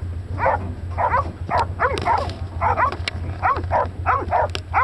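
Hog-hunting bay dogs barking repeatedly at a cornered boar hog, about two barks a second: baying, holding the hog at bay.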